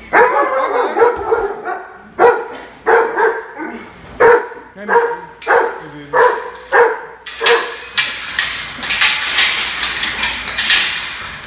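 Dogs barking in their kennels: a steady run of loud barks at about two a second, then from about eight seconds in a denser, higher-pitched clamour.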